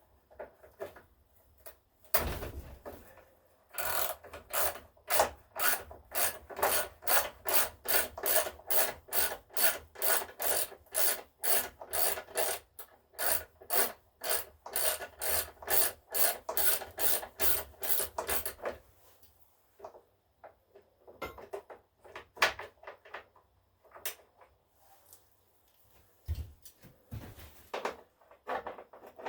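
Socket ratchet wrench cranked back and forth in quick, even strokes, about three a second, backing out a bolt; it stops after some fifteen seconds, leaving a few scattered light clinks of tools and parts.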